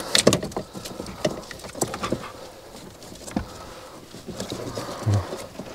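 Wiring and plastic plugs being handled behind a car's head unit as the cables are repositioned: irregular light clicks, taps and rustling of cables against plastic.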